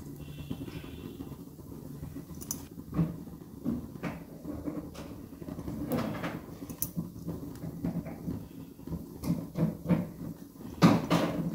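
A metal knife clicking and scraping against a kulcha and the gas-stove grate as the flatbread is turned and toasted over an open burner flame, with a louder clatter near the end. A steady low hum runs underneath.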